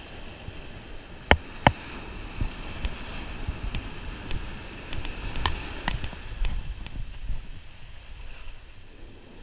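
Wind rumbling on the microphone over the wash of surf on the sand, with sharp clicks and knocks from a spinning reel and rod handled right at the camera: two loud ones a little over a second in, then a scatter of lighter ticks.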